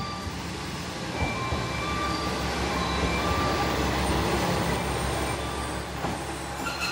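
Train pulling in along a station platform: a rumble that builds over the first couple of seconds and then holds, with a faint high squeal about four seconds in.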